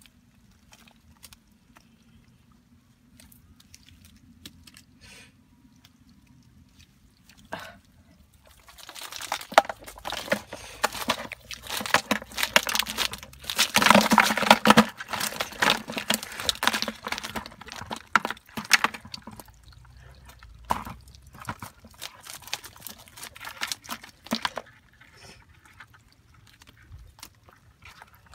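Bamboo-slat fish trap rattling and knocking against a plastic bucket as it is worked and shaken to empty the catch. About nine seconds in there is a dense clatter lasting around ten seconds, loudest in the middle, followed by scattered single knocks.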